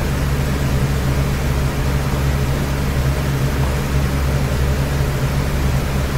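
Steady low machine hum under an even rushing hiss, unchanging throughout.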